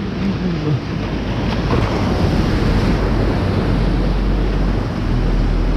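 Ocean surf breaking and washing in around the shallows, with heavy wind rumble on the microphone.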